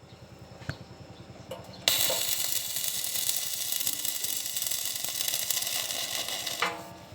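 A power tool starts abruptly about two seconds in and runs for about five seconds with a high hiss and whine, then stops near the end. Before it starts there is a single click.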